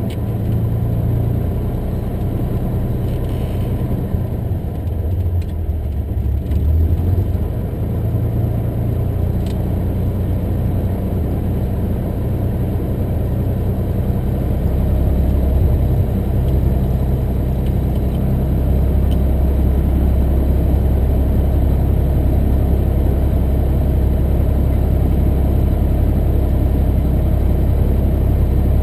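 Cessna 175's piston engine and propeller running steadily, heard from inside the cabin. It gets somewhat louder from about halfway through.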